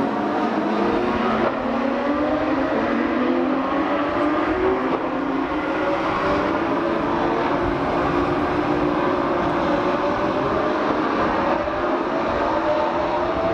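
Race car engines accelerating on track, their engine notes climbing slowly and steadily in pitch.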